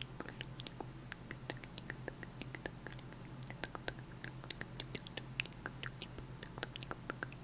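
Close-miked ASMR mouth sounds: quick tongue clicks and lip pops of the "tk tk", "pk pk" kind, several a second, with soft unintelligible whispering, over a steady low hum.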